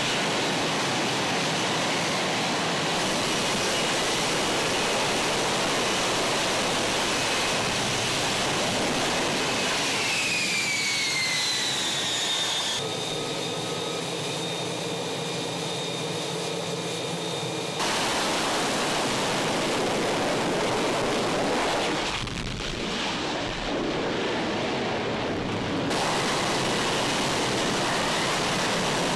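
Lockheed Martin F-35B's Pratt & Whitney F135 engine and lift fan running at high power in a vertical-landing hover: a loud, steady rush of jet noise. About ten seconds in, a whine falls in pitch as the engine winds down, then comes a few seconds of quieter, steady turbine whine with the jet on deck, before the loud jet noise returns.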